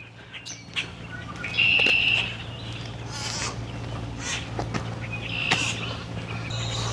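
Wild birds calling back and forth in short high calls, the loudest about two seconds in, over a steady low hum.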